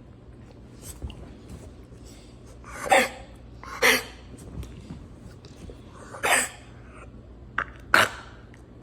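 A dog coughing in four short, separate bursts spread over several seconds, the sign of the coughing problem the dog is being filmed for.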